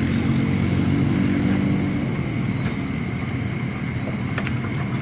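Small boat engine running with a steady low drone that eases off about two seconds in.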